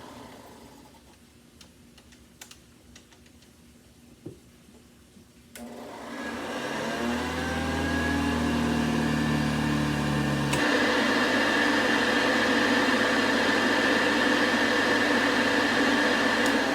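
A few faint clicks, then a vintage Hoover 707 vacuum cleaner's motor switching on about five seconds in and spinning up with a rising whine. About ten seconds in it shifts abruptly to a steady, higher-pitched run. The owner feels the motor doesn't sound 100%.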